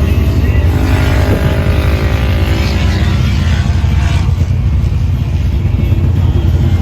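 Off-road vehicle engine running, a loud steady low rumble.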